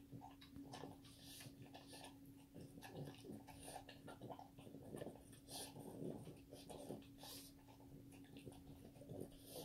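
French bulldog eating raw liver from a stainless steel bowl: faint, irregular chewing and mouth noises with small clicks, over a steady low hum.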